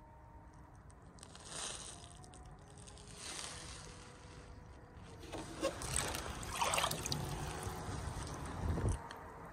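Wind and water noise around a small boat on a lake, in swells that grow louder and heavier in the second half before dropping away near the end.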